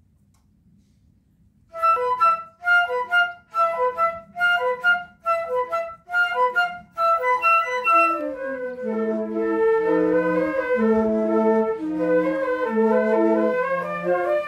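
Flute ensemble playing, after about two seconds of near silence: it opens with short, detached chords at about two a second, and some six seconds later a low line of held notes comes in under the melody.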